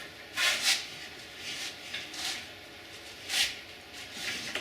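Hand-cranked sheet metal roller rolling a 1/8-inch plate back and forth. It makes a series of short rubbing, scraping swishes of metal on metal, the loudest about half a second in and about three and a half seconds in.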